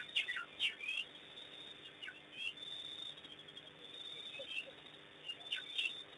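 Small birds chirping and twittering in quick, sharp, falling notes, thick in the first second, sparse in the middle and bunched again near the end, over a faint steady low hum.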